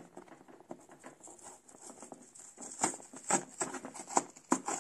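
Cardboard LEGO box flap being pried open with a plastic brick separator to get past the punch tab: irregular scraping, rustling and small clicks, with a few sharper knocks in the second half.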